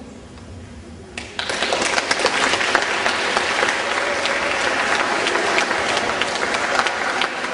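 An audience clapping, starting suddenly about a second in and going on steadily as applause after a recitation.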